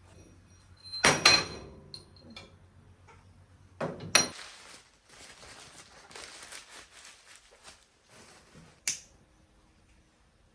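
Kitchenware being handled: a loud ringing clink about a second in and a double knock a few seconds later, then a stretch of soft hissing and rustling, and one last sharp click near the end.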